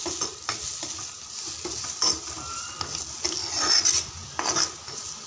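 A steel spoon stirring and scraping a spice masala frying in oil in a clay pot: a steady sizzle with repeated short scrapes and clicks of the spoon against the pot.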